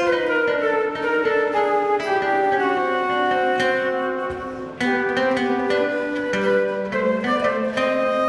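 Concert flute and acoustic guitar playing cool jazz live together: the flute plays a moving line of notes over plucked guitar, with a brief lull about halfway through.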